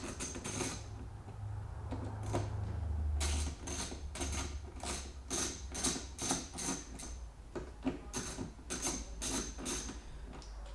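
Ratcheting hand tool clicking in short runs, about three clicks a second, as the bolts holding the brackets on a Suzuki DRZ400's stock fuel tank are undone. A low rumble sits under the first few seconds.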